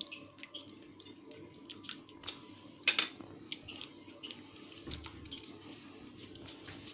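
Wet squelching with scattered small clicks and ticks as pieces of moray eel are laid and turned in a wet chermoula marinade of oil, garlic, spices, vinegar and water.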